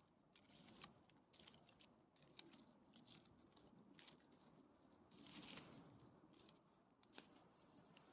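Near silence, with faint scattered clicks and crackles and a brief soft hiss about five and a half seconds in.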